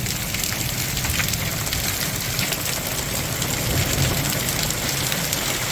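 Small hailstones coming down hard: a dense steady hiss full of many sharp little ticks as the stones strike.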